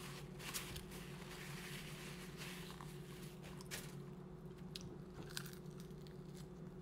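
A person biting into and chewing crispy fried food, with a few sharp crunches spaced out over several seconds. A steady low hum sits underneath.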